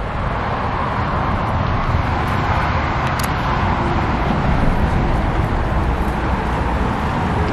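Steady vehicle noise: a constant low rumble under an even hiss, with no distinct events.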